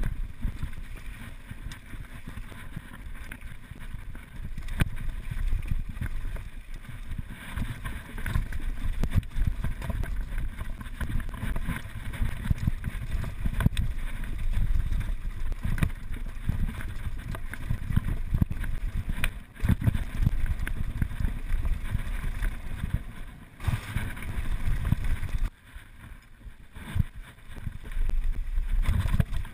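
Wind rushing over an action camera's microphone as a downhill mountain bike runs over a bumpy dirt and gravel trail, with frequent rattles and knocks from the bike over the bumps. It goes quieter for a moment about 25 seconds in.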